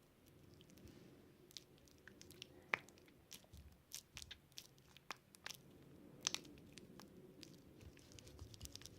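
Faint, scattered sticky clicks and squelches of a runny homemade salt-and-shampoo slime being squeezed and worked between the hands.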